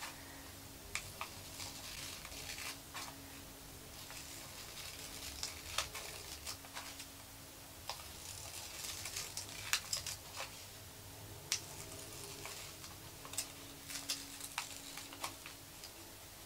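Small scissors snipping curved cuts into folded paper: faint, irregular snips with light paper rustling between them.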